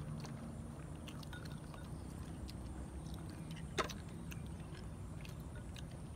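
Eating sounds: chewing and small clicks of wooden skewers against a plate and sauce bowl, with one sharper tap nearly four seconds in, over a steady low hum.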